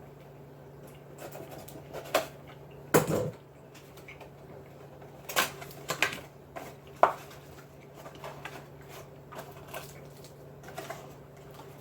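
Scattered small clicks and knocks of things being handled at a table, with a louder thump about three seconds in and a few sharper clicks a few seconds later, over a steady low hum.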